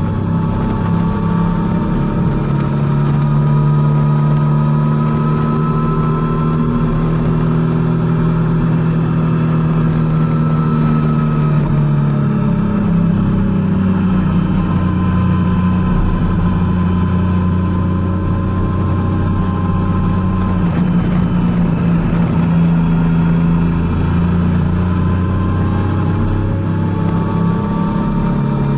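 Triumph Tiger 800's three-cylinder engine running steadily under way, its pitch drifting up and down a little, with clear changes about 12 and 21 seconds in.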